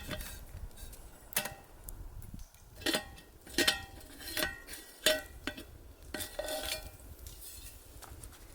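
Metal cookware and utensils knocking together in a series of sharp, irregular clinks, several ringing briefly.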